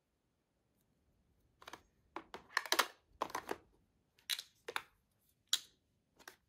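Plastic makeup compacts being handled, their cases and lids giving a run of short clicks and brief rattles that start about a second and a half in.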